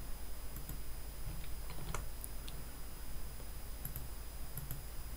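A few faint, scattered clicks of a computer keyboard and mouse as lines of code are copied and pasted, over a steady low electrical hum.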